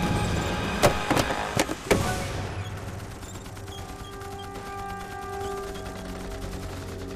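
About five gunshots in quick succession, from about a second in to two seconds in, over dramatic background music that carries on throughout.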